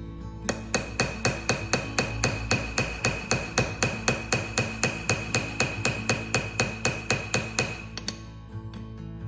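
Small hammer peening the brass pins of a slip joint pocket knife: rapid light taps, about five a second, each with a short metallic ring, stopping near the end. The blows are spreading the brass pins inside the handle to pull the liners together and close the seams. Guitar music plays underneath.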